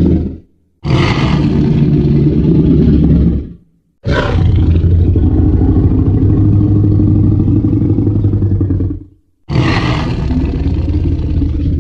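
Deep monster roars built from layered dinosaur and animal sound effects. A short roar about a second in, a long one of about five seconds, and another near the end, each opening harsh and high and settling into a low rumble, with brief silences between.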